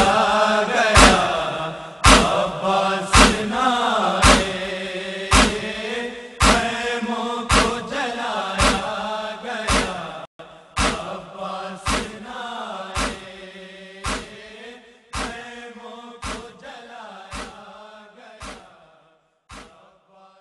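Noha lament: male voices chanting in a slow refrain over a sharp beat struck about once a second, fading out near the end.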